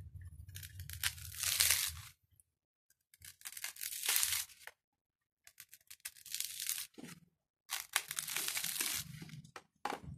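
Dry coconut husk fibres tearing and scraping as a knife prises the husk away from a sprouting coconut, in about four bursts separated by short silences.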